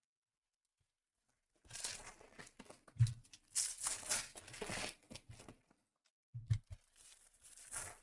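Foil trading-card pack wrappers being torn open and crinkled, in noisy rustling spells with a few dull knocks, the loudest about three seconds in.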